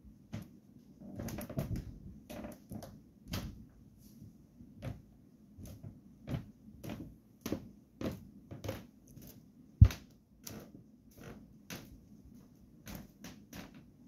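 Hunter Hilmouth ceiling fan running with a low hum and a repeating click about twice a second, with one louder knock about ten seconds in.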